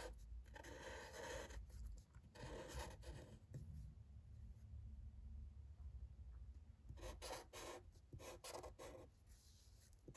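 Fine-point felt-tip marker writing on paper, faint rubbing strokes as each letter is drawn, in short separate bursts with a pause of a few seconds in the middle.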